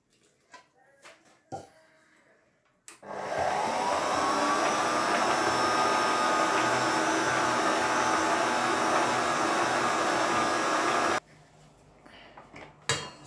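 Electric mixer kneading yeast bread dough until smooth and elastic. After a few light knocks, the motor starts about three seconds in, its whine rising briefly and then running steadily, and it cuts off abruptly about eight seconds later; a sharp knock follows near the end.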